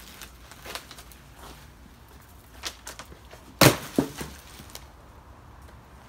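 Palm-tree trimming: a few sharp cracks, then a loud crash a little over halfway through, followed by a second, smaller thud.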